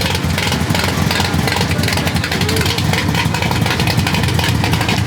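Car engine idling steadily at a car meet, a loud, even rapid pulsing with no revving.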